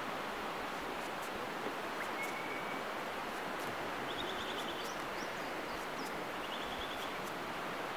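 Steady, even hiss of beach ambience, wind and distant surf, with faint high bird chirps: a short whistle about two seconds in and two quick trills later on.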